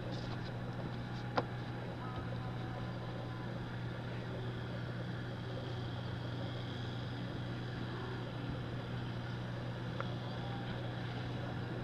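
Outboard motor idling steadily with a constant low hum. A sharp click about a second and a half in.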